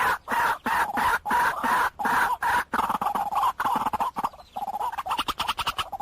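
White-breasted waterhen calling: a series of harsh, pitched notes repeated about three times a second. The series breaks off briefly a little after the middle, then resumes as quicker, shorter notes.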